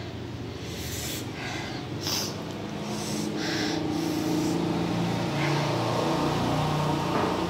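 A person sniffing and breathing in sharp hissing gusts through the mouth, in pain from the chili heat of extra-spicy noodles. From about halfway a steady low hum sets in and becomes the loudest sound.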